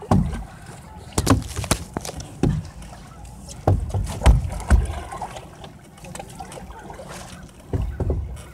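A canoe under way on a lake: irregular knocks and splashes of paddling and water against the hull, over an uneven low rumble. A cluster of these comes about four seconds in and another near the end.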